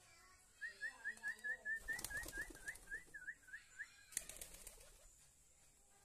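Pigeons flapping their wings twice, the second burst starting with a sharp clap about four seconds in. Over the first half, a bird chirps a quick run of about a dozen short rising notes.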